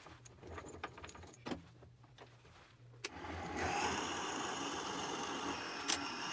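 A few light clicks of handling, then a wood lathe switched on about three seconds in: the motor runs up with a brief rising whine and settles into a steady run as a drill bit in the tailstock chuck bores into the centre of the spinning red oak blank. A sharp click comes near the end.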